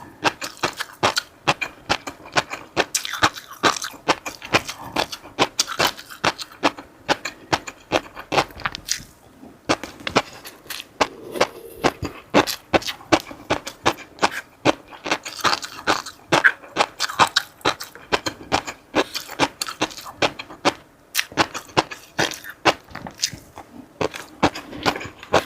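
Close-miked eating sounds: a person chewing food with the mouth near the microphone, giving a rapid, irregular run of short clicks and smacks several times a second.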